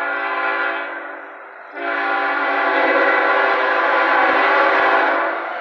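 Multi-tone air horn of a CSX GE ET44AH freight locomotive sounding two blasts: a short one that fades out, then a longer, louder one starting about two seconds in.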